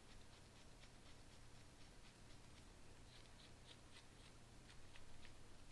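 Near silence, with faint scattered clicks and light handling of a motorcycle chain breaker tool, a few more of them from about three seconds in.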